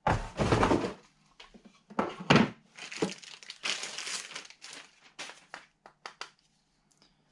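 Plastic packaging crinkling and rustling in bursts as detector parts are handled, loudest in the first second, then fading into a few short clicks near the end.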